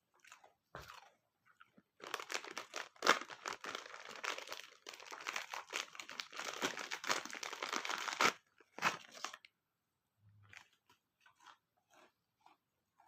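A dog crunching and chewing a hard, crunchy treat: a dense run of crunching from about two seconds in to about eight seconds, then one more short crunch.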